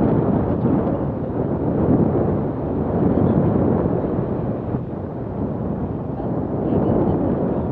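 Wind from a paraglider's flight rushing over the microphone of a handheld camera: a loud, steady rush that swells and eases every second or two.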